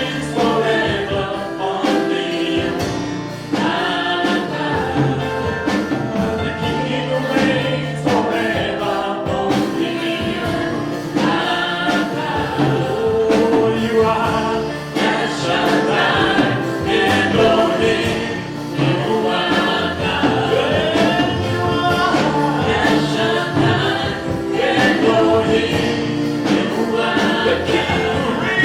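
Gospel song: a choir singing over a steady beat.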